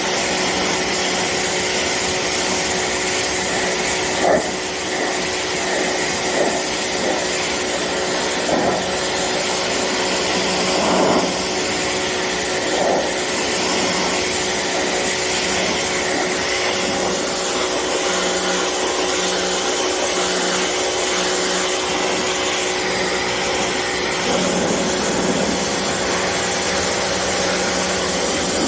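Pressure washer running and spraying: a steady hiss from the water jet over the constant hum of its pump and motor, with a few brief changes in the spray sound.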